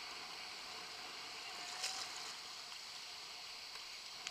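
Steady hiss of choppy sea water and small waves washing at the shoreline, with a faint click about two seconds in.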